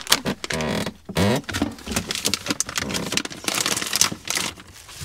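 Groceries being packed into a camper van's compact refrigerator: plastic packaging rustling and crinkling, with many quick knocks and scrapes as items are set on the shelves and against the cans in the door bins.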